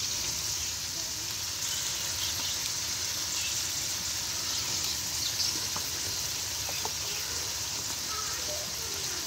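Onions, green chillies and tomatoes frying in ghee in an aluminium pot, sizzling steadily as salt is sprinkled in.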